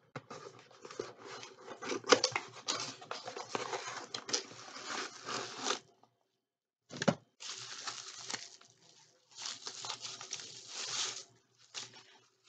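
Packaging torn open and crinkled by hand in quick, crackly stretches, with a pause about six seconds in broken by a single sharp knock.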